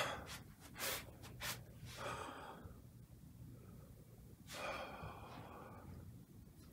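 A person's faint breathing, two audible breaths about two and five seconds in, after a few soft clicks of the phone being handled near the start: the raw audio of a walk filmed on a phone.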